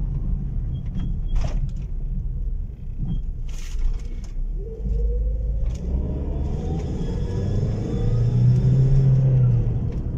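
A Chevrolet car driving, heard from inside the cabin: a steady low engine and road rumble, with the engine note rising as it speeds up about halfway through and a few sharp knocks earlier on. The engine runs evenly, without the misfire it used to have.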